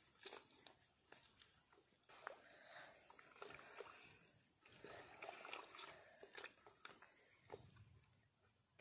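Faint, irregular squelching and sloshing of a bare hand kneading a thick wet mix of jaggery, buttermilk and cinnamon powder in a plastic bucket.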